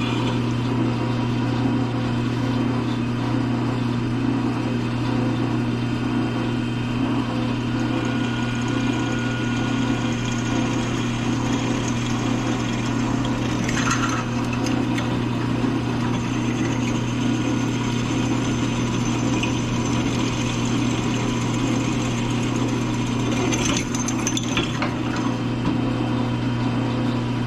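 Drill press motor running steadily while a 5/16-inch bit drills through a soft aluminum tube, with brief high scraping sounds from the cut about halfway through and again near the end.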